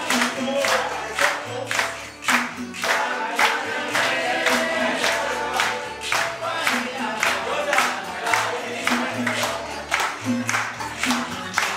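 Live Cuban group music: acoustic guitars strummed while several men sing together, over a walking bass line, with sharp percussion strokes and clapping about twice a second.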